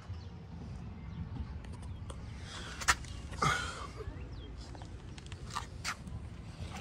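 Quiet outdoor background with a steady low rumble, broken by a few light clicks and knocks about three seconds in and again near six seconds.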